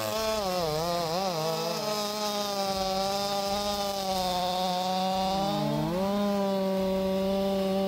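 Stihl MS 500i 79.2 cc fuel-injected two-stroke chainsaw running at high revs while cutting through a large log. Its pitch wavers in the first couple of seconds, dips briefly about five and a half seconds in, then holds steady.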